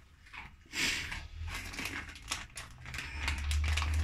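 Plastic packet of sliced ham crinkling and rustling as slices are pulled out and laid on bread, in a string of short crackles. A low rumble comes in during the last second.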